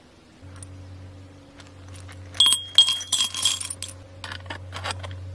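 Small pieces of metal clinking and rattling against a rusty steel can, a tight burst of ringing clinks in the middle followed by a few lighter taps, over a steady low hum.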